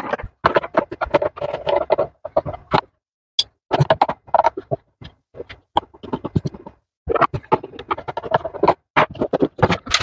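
Quick, uneven clicks, knocks and rattles of plastic and metal parts being handled as a home espresso machine's casing is worked loose and lifted off.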